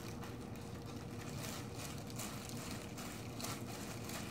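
Disposable plastic glove crinkling and rice squishing as a gloved hand kneads and mixes rice with spicy pork cartilage in a cast iron skillet, faint soft crackles over a steady low hum.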